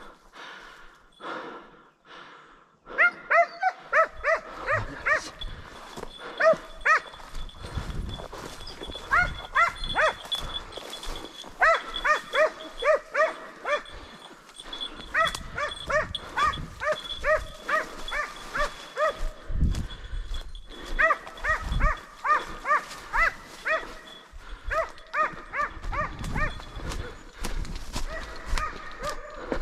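A kopay hound giving voice on a hare: it barks in fast runs of high, pitched yelps, several a second, that start about three seconds in and go on with short breaks. In hare hunting this baying is the sign that the hound has the hare's scent and is on the chase.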